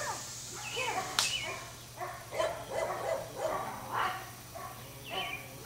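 A dog barking about six times, in short separate barks, during bite-sleeve work. A single sharp smack about a second in is the loudest sound.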